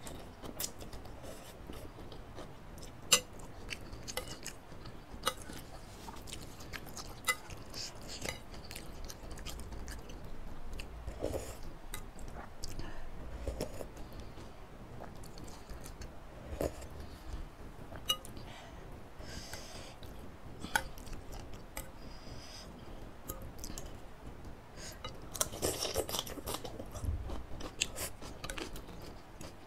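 Close-miked chewing and slurping of instant noodles in spicy soup, with sharp little clicks now and then.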